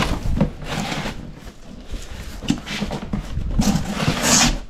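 Cardboard shipping box and its packing being handled and pulled open: irregular scraping and rustling in several bursts, the longest and loudest near the end.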